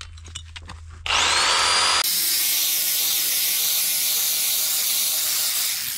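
An electric power tool spins up with a rising whine about a second in, then cuts steadily into an aerated concrete (Ytong) block, going through it easily.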